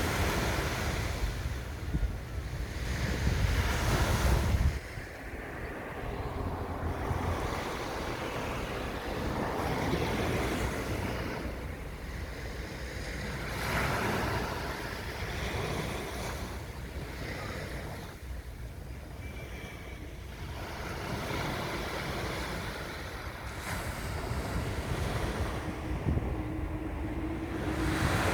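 Sea waves washing in, swelling and fading every few seconds, with wind buffeting the microphone as a heavy low rumble for the first few seconds until it cuts off suddenly. A steady low hum joins near the end.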